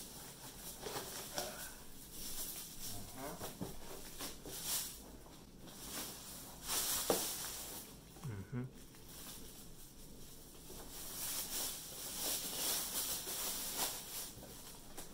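Rustling and scraping of packaging as a monitor is handled out of its box, in irregular bursts, with a sharp click about seven seconds in.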